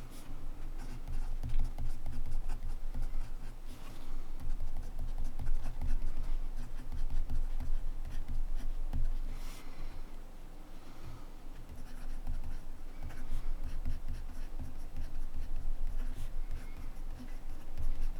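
Montblanc Meisterstück 144 fountain pen writing on paper: a run of quick, irregular nib strokes, easing off briefly about ten seconds in.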